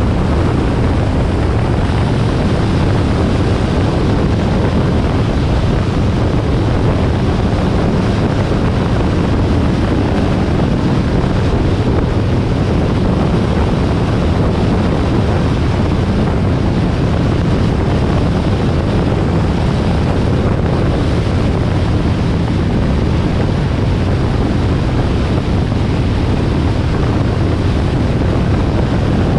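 Steady wind rush on the microphone of a moving Harley-Davidson XL1200R Sportster, with the bike's 1200 cc V-twin engine running evenly underneath.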